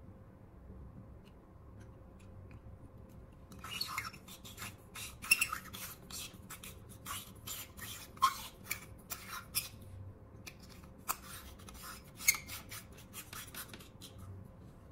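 Irregular clicks and scrapes of hands handling a disassembled LED bulb's plastic housing and metal tweezers, starting about four seconds in, with a few sharper clicks standing out, and stopping shortly before the end.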